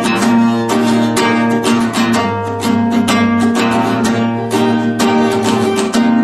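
Acoustic guitar strummed steadily in an even rhythm of about three strokes a second, playing chords without vocals. It is a cheap $60 guitar strung with four-year-old strings.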